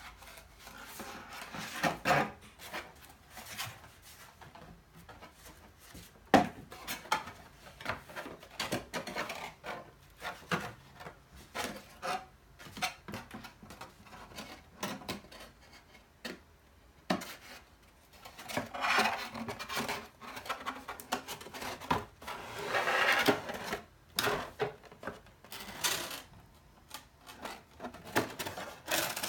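Cardboard display being folded and fitted together by hand: the board scrapes and rubs against itself and against the table, with irregular sharp taps and snaps as panels are bent and pushed into place, and longer stretches of rubbing about a third and three quarters of the way through.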